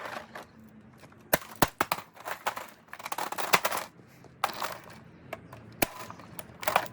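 Scattered sharp clicks and knocks with a few short rustling scrapes, irregular and unhurried: a robot vacuum cleaner's plastic housing and parts being handled and pried apart by hand.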